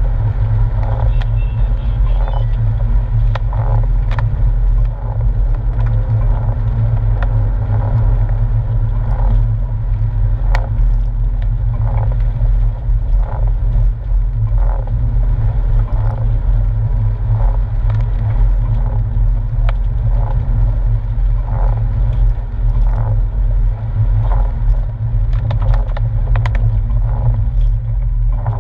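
Steady low rumble of a Porsche 997 on the move, heard from inside the cabin: its flat-six engine and the tyres on a wet road. Light ticks come about once a second throughout.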